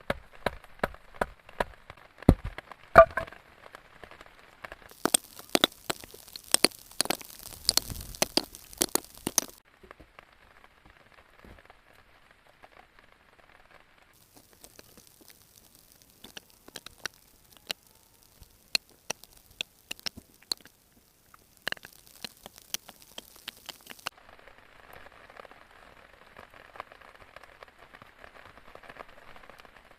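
Scattered raindrops tapping on a surface: many sharp, irregular ticks and cracks over a faint hiss, the background changing abruptly several times.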